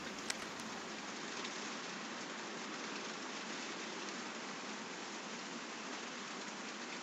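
Steady rain falling on the hut's roof overhead, heard from inside as an even hiss, with one brief click just after the start.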